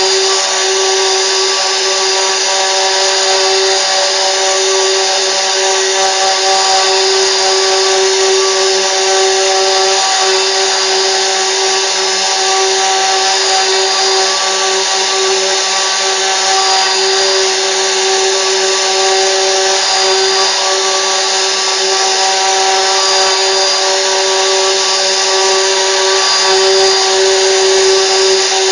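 CNC router spindle running steadily and cutting, with a constant whine and a cutting hiss that holds the same level throughout.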